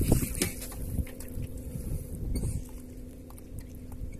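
Water sloshing and lapping against the side of a small fishing boat, with a low rumble of wind on the microphone. Through it run a faint steady hum and a few faint, irregular clicks.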